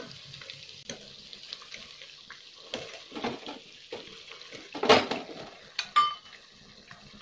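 Steel ladle scraping and clinking against a nonstick pot as excess oil is skimmed off chicken cooking in it, with a faint sizzle of the chicken in oil underneath. A sharp metal tap with a short ring comes near the end.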